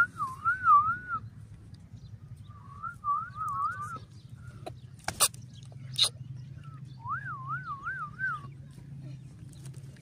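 A warbling whistle in three short phrases, each wobbling quickly up and down in pitch. Two sharp clicks fall between the second and third phrases.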